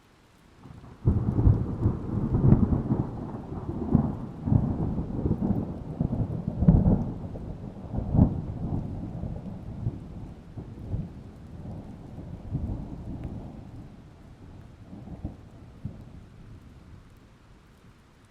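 A long roll of thunder over a faint hiss of rain: it breaks suddenly about a second in, rumbles low with repeated loud cracks for several seconds, then slowly fades away.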